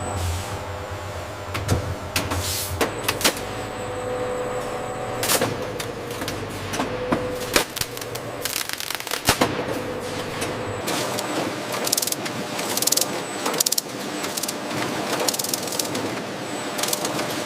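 Processing-line machinery clattering: a steady running hum with a constant tone, broken by many sharp irregular clicks and knocks of metal parts.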